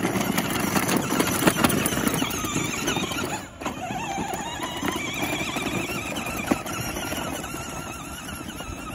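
Children's battery-powered ride-on ATV running: its electric drive motors and gearbox whine, wavering in pitch, while the plastic wheels roll over a dirt path. The sound dips briefly about three and a half seconds in, with a few sharp clicks.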